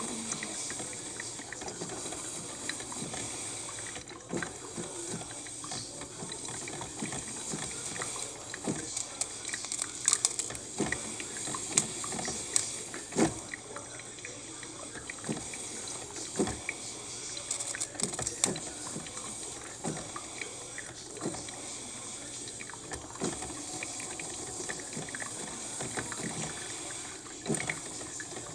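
Cuisinart drip coffee maker brewing: a steady hiss of hot water with irregular gurgling pops as it pushes through to the basket.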